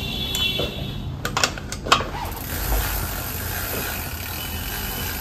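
Metal clicks of a bicycle pedal being screwed into the crank arm and tightened with a tool: about four sharp clicks between one and two seconds in, the last the loudest, then only steady shop noise.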